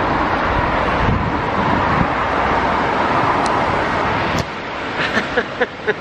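Petrol gushing from a pump nozzle into a car's fuel tank, a loud, steady rushing hiss that cuts off abruptly about four seconds in.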